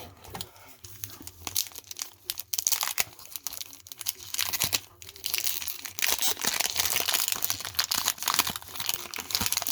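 Wax-paper wrapper of a 1991 Topps baseball card pack being torn open and crinkled: a few scattered crackles at first, then dense, steady crinkling that grows louder about halfway through.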